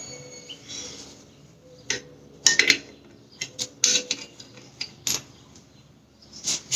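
Irregular metallic clinks and clanks of hand tools and suspension parts being handled, about a dozen sharp knocks spread unevenly, the loudest a little over two seconds in and again near four seconds.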